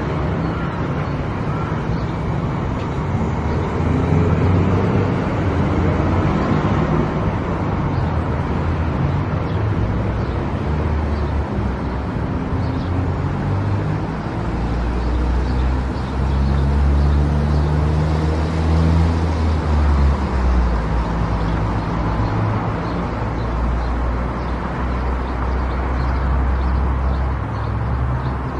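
A car driving along a road: steady engine and tyre noise, with the low engine note shifting in pitch and growing louder partway through as the speed changes.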